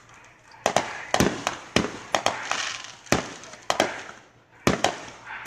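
Aerial fireworks going off in a rapid string: about a dozen sharp bangs, some in quick pairs, with a crackling hiss between them about halfway through.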